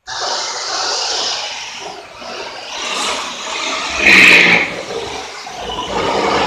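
Corded electric drill running under load as it bores into the wall at the top of an electrical panel box, starting abruptly and rising and falling as the bit bites. The loudest, higher-pitched stretch comes about four seconds in.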